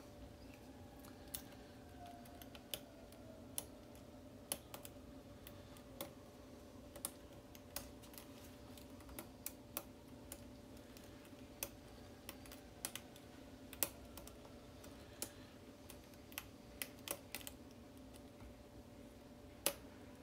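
Light, irregular clicks of a pick and tension wrench working the pins of a pin-tumbler challenge lock with a Schlage SC4 keyway, the lock not yet open. A faint steady hum sits underneath.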